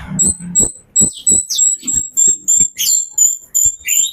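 A songbird repeating a short high whistled note about four times a second, each note with a lower, falling slur, in a fast steady series.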